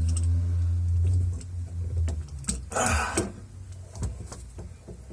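Light metal clicks and a short scrape of a wrench working the nut of a 3/8-inch faucet supply line onto a shut-off valve, over a low hum in the first two seconds.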